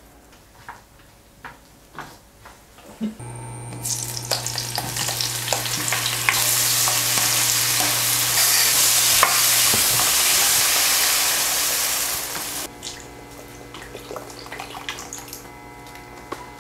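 Shrimp and button mushrooms sizzling in a hot nonstick wok, stirred with a wooden spatula, over a low steady hum from the induction cooktop. The sizzle builds from about four seconds in and drops off sharply near thirteen seconds as milk or cream is poured into the pan.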